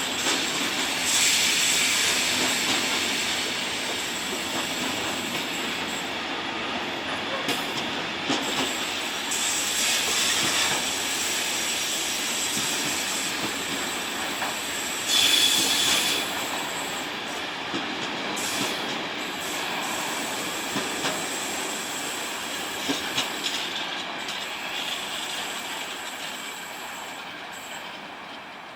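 Train passing on the rails, its wheels squealing in high, shrill tones over the rolling noise, with a few wheel clicks. The squeal flares loudest about a second in and again about fifteen seconds in, and the sound fades away near the end.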